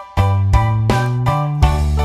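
Upbeat instrumental background music for children, with bright keyboard-like notes over a bass line.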